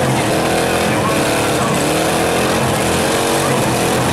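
Several demolition derby cars' engines revving hard at once, their pitch sweeping up and down in overlapping waves, as cars locked together in a pile-up strain against each other.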